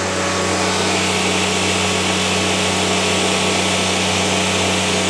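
Car engine idling steadily with apple juice in the crankcase in place of engine oil, running smoother than at start-up. A hiss over the idle grows louder about a second and a half in.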